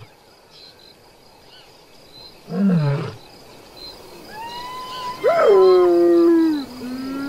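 A young male lion gives a short, low moaning call about two and a half seconds in, its pitch falling. From about four seconds, long wailing calls follow, the loudest sliding down in pitch and then holding steady for over a second.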